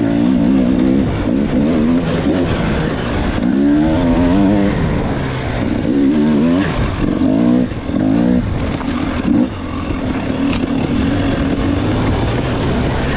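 Dirt bike engine revving up and down on the throttle while riding, its pitch rising and falling in quick waves for several seconds. About nine seconds in it drops and settles into a steadier, even run.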